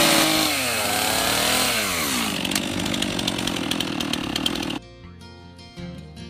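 Stihl chainsaw engine revving down and back up, then running steadily at lower revs before cutting off suddenly about five seconds in. Quiet acoustic guitar music follows.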